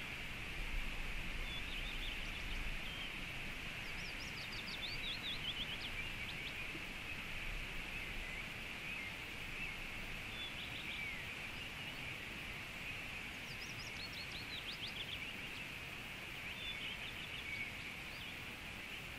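Birds chirping in short rapid trills, a burst every few seconds, over a steady hiss of running water.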